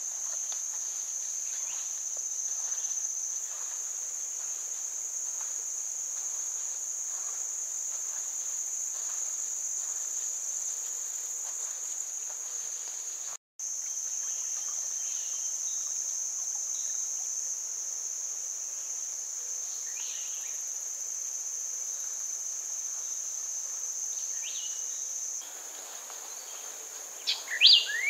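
Steady high-pitched drone of insects calling in the forest, breaking off for an instant about halfway. A few sharp bird chirps stand out near the end.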